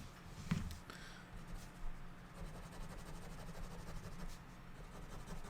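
Quiet room tone: a steady low electrical hum, with faint scratchy drawing strokes and a small click about half a second in.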